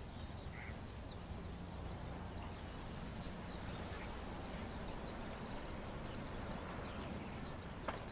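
Faint outdoor ambience from a film soundtrack: small birds chirping repeatedly over a steady low hum, with a sharp click near the end.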